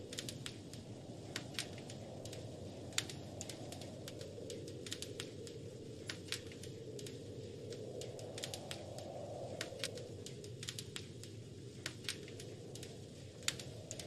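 Wood fire crackling, with irregular sharp pops and snaps, the strongest about three seconds in and near the end. Under it runs a steady low rush of wind that swells and eases a few times.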